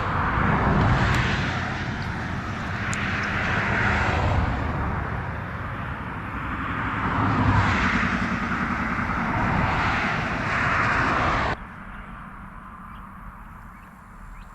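Traffic on the road passing one vehicle after another, each rushing by, swelling and fading. The sound cuts off suddenly near the end, leaving a quieter background.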